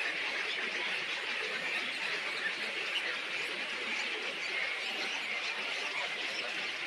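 A dense, steady chatter of many small birds calling at once, with no single call standing out.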